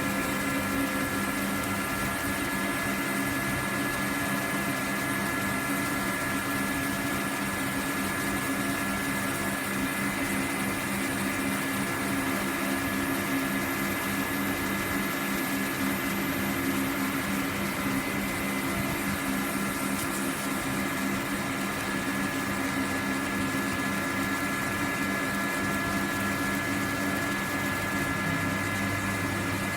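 Laser CNC cutting machine running on steel: a steady machine hum over an even hiss, with a few constant tones.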